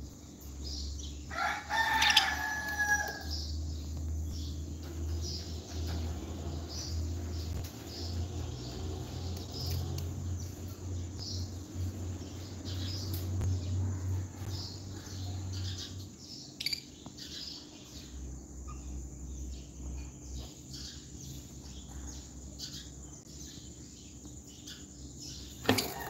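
Small caged parrots, lovebirds and a budgie, chirping in quick, high, repeated notes, with one loud, drawn-out call about two seconds in.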